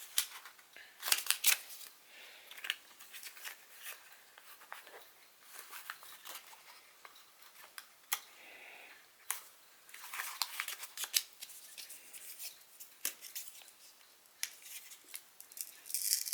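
Handling of plastic product packaging: scattered sharp clicks, taps and short rustles as the camera is fitted back into its packaging.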